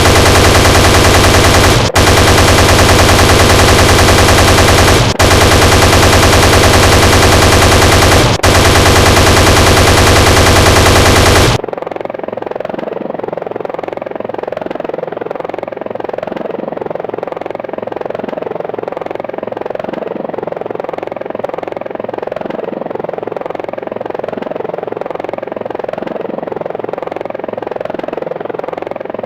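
Helicopter chain gun sound effect firing continuously in four long bursts separated by brief breaks, then cutting off abruptly about eleven and a half seconds in. A steadier, quieter helicopter rotor and engine sound with an even pulsing beat carries on after it.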